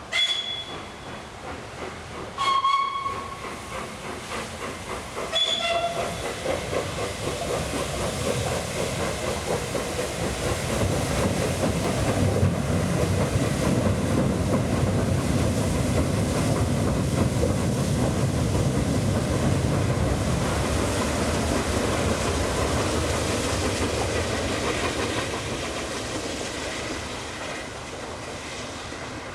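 Peppercorn A1 steam locomotive Tornado giving three short toots on its chime whistle, then running past with its steam noise and wheel rumble building to a peak and fading away near the end.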